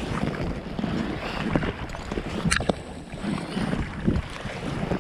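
Water sloshing and slapping against an inflatable Alpacka packraft on choppy water, with wind on the microphone and a sharp knock about two and a half seconds in.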